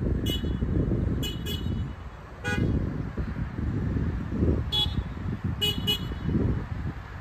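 Wind rumbling on the microphone, with about seven short high-pitched toots or chirps scattered through it.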